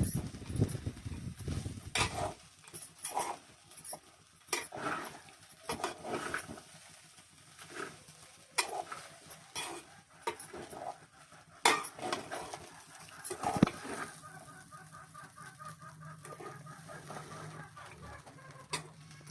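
Hens clucking, with scattered short clinks and scrapes of utensils.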